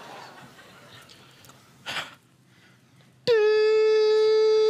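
A long, steady, high beep like a hospital heart monitor flatlining starts abruptly about three seconds in and holds unbroken. It signals a patient's death in the scene. Before it there is a faint murmur and a brief burst of noise about two seconds in.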